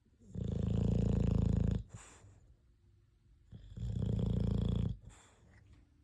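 Sleeping dog snoring: two long, loud snores about two seconds apart, each lasting about a second and a half and followed by a short, fainter sound.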